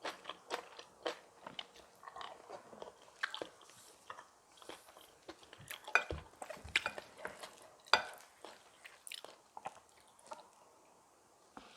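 A person chewing and biting a mouthful of kimchi bibimbap with crisp crunches and wet mouth clicks, the crunches thinning out near the end. Two louder sharp clicks come about six and eight seconds in.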